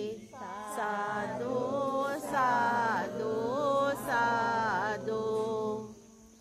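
Pali Buddhist devotional chant sung melodically by one voice over a steady low drone, with long gliding held notes; it fades out about six seconds in.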